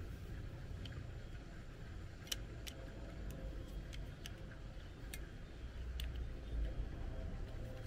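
Light plastic clicks and taps, about a dozen scattered at irregular intervals, as a touch-up paint bottle is handled and clipped against the plastic cap of an aerosol paint can, over a steady low rumble.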